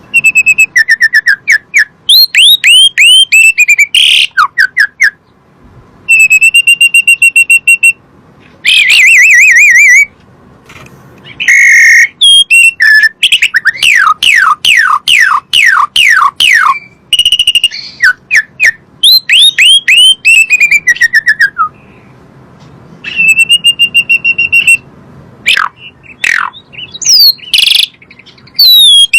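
Asian pied starling (jalak suren) singing: a string of loud whistled phrases with short pauses between them, mixing falling slurred whistles, held steady notes and a fast run of repeated falling notes about halfway through.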